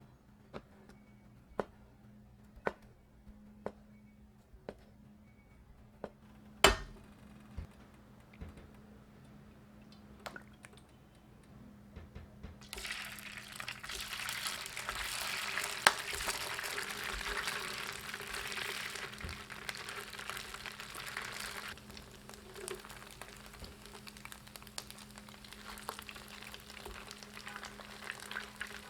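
Kitchen preparation: light clicks and knocks of utensils and dishes, one louder knock, then a steady hiss of running or pouring liquid that starts suddenly about halfway through and cuts off several seconds later, leaving a fainter hiss.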